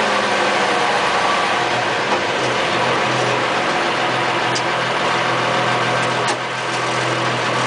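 M109A3 2½-ton army truck's multifuel diesel engine running steadily, heard from inside the cab, with a short click and brief dip in loudness about six seconds in.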